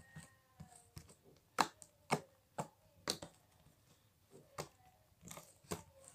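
Marshmallow slime being squeezed and pressed by hand, giving a string of sharp, irregular pops and clicks from air trapped in it, seven or so of them loud.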